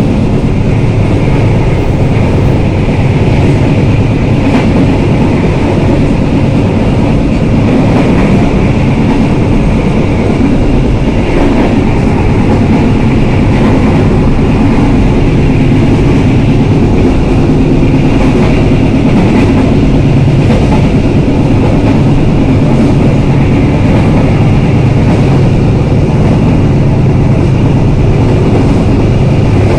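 Passenger train running along the track, heard from on board: a steady loud rumble with occasional clacks of the wheels over the rails.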